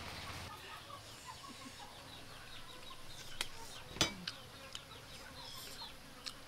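Outdoor farmyard ambience: small birds chirping repeatedly and chickens clucking, with a few sharp knocks, the loudest about four seconds in.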